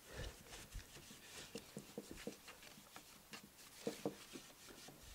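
Faint, irregular rubbing and small knocks of a wax rag and gloved hand working furniture wax into the legs of a wooden chair, with a couple of soft low thumps near the start.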